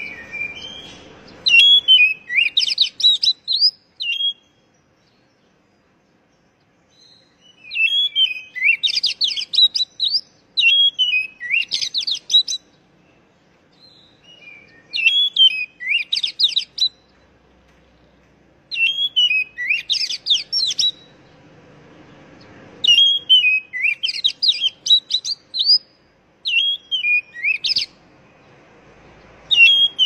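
Oriental magpie-robin (kacer) singing loud phrases of rapid, varied high whistled notes, one phrase after another with short pauses between.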